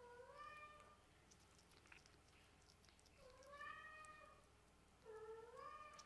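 Kitten meowing three times, soft, each meow about a second long with the pitch rising then falling, and faint clicks in between.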